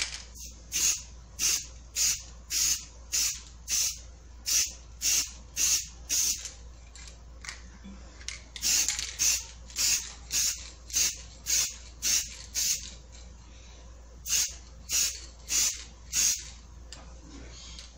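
Aerosol can of gold spray paint sprayed in short hissing bursts, about two a second, in several runs with brief pauses, coating the bottom of a glass jar.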